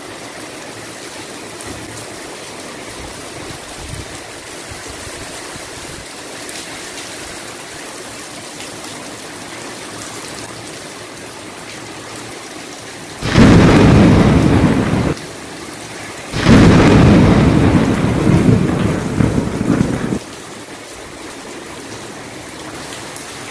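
Steady heavy rain with two loud claps of thunder a little past halfway: a short one of about two seconds, then after a brief gap a longer one of about four seconds. Both start and stop abruptly.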